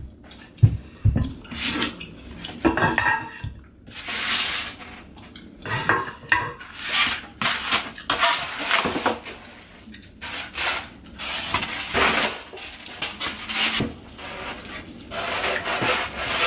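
A cardboard furniture box and its packing being handled and pulled open: irregular rustling and scraping bursts with a few sharp knocks.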